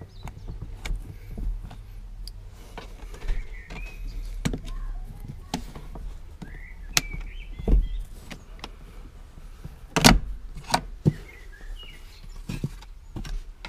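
Scattered clicks and knocks of hands handling plastic trim and fittings at a car seat's base, the loudest knock about ten seconds in, with faint chirps in between over a low steady hum.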